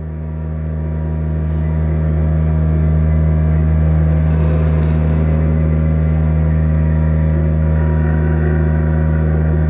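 Drone music: a deep, steady hum under layered sustained tones, swelling in over the first two or three seconds and then holding level.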